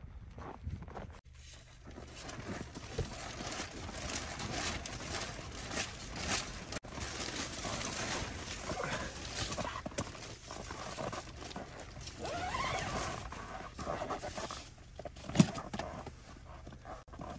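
Handling noises while a small sheet-metal wood stove is set in place inside a tent: rustling and clattering with irregular knocks, and one sharp knock about fifteen seconds in.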